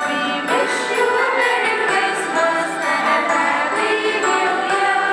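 Christmas song: a group of voices singing together over music with jingle bells and a steady beat.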